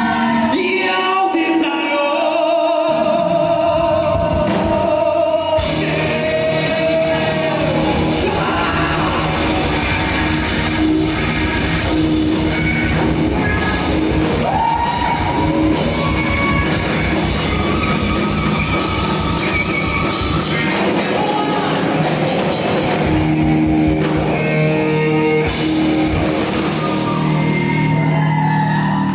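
A rock band playing live with a singer. The vocal carries over a sparse backing at first, and the full band with drums comes in loud about five seconds in.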